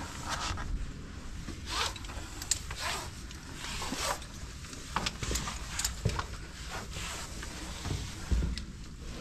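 Caving gear rubbing and zipping in irregular short strokes, over a steady low rumble.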